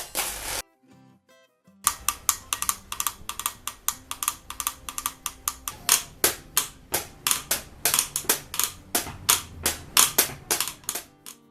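A percussion instrument struck in quick, sharp, evenly paced hits, about four or five a second. It stops about half a second in, then after a second's pause plays a long run of strikes that ends near the close.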